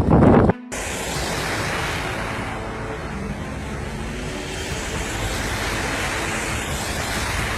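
Steady rushing noise of strong wind in a snowstorm, swelling and easing slowly, heard after a hard cut about half a second in.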